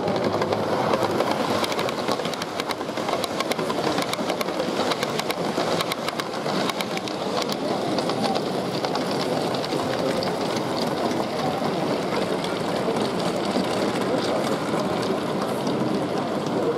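0 gauge model train running on the layout: the locomotive's electric motor whirring and the wheels clicking rapidly over rail joints and pointwork, over the steady murmur of a crowded hall.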